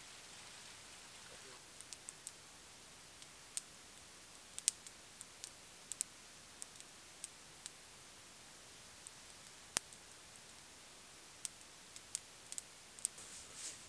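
Wood campfire crackling, with irregular sharp pops and snaps starting about two seconds in; the loudest snap comes about ten seconds in.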